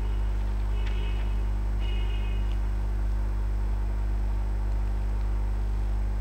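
Steady electrical mains hum with no speech over it, and two faint short high tones about one and two seconds in.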